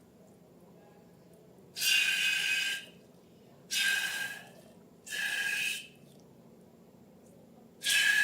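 Air hissing through a balloon's neck in four separate bursts of about a second each, every burst with a thin, steady whistle.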